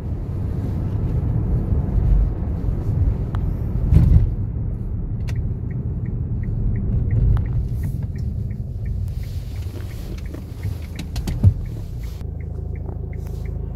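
Kia Sportage R driving at about 80 km/h: steady road and engine rumble, with one thump about four seconds in and a regular light ticking, about three a second, through the second half.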